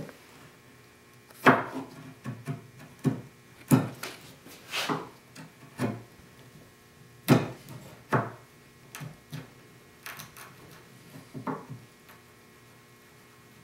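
Sharp wood chisel pushed by hand, paring the cheeks and shoulder of a sawn Sipo (African mahogany) tenon to its layout lines: about a dozen short slicing scrapes at irregular intervals, the loudest just past halfway.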